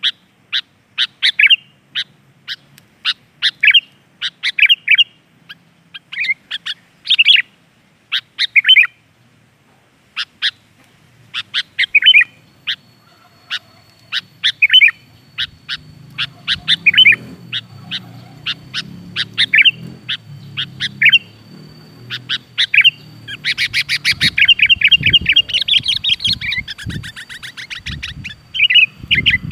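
Sooty-headed bulbul calling: short sharp chirps in quick phrases about once a second, breaking into a fast, continuous chatter in the last several seconds. A few low thumps sound near the end.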